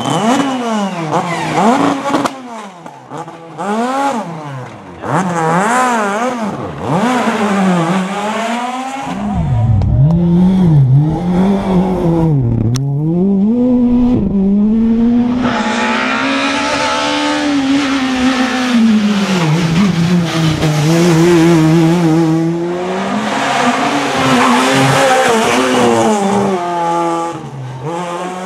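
Skoda Fabia S2000 rally cars' naturally aspirated 2.0-litre four-cylinder engines revving hard, the pitch climbing and dropping again and again through gear changes and corners, with a long held high-rev stretch in the second half. A single sharp click comes around the middle.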